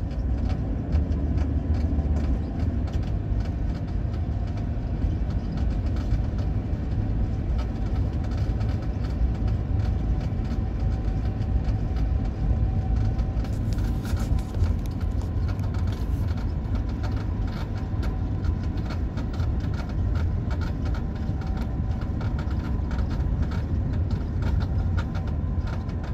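Inside the cabin of a 1984 Mercedes 300SD (W126) rolling at about 20 mph: a steady low rumble, with rapid crunching clicks from the rear that become denser about halfway through. The noise comes from a failed rear wheel bearing.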